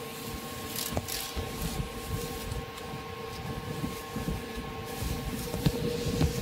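Steady machine hum with a few held pitched tones, under irregular light knocks and brief rustling as plastic is handled at the machine.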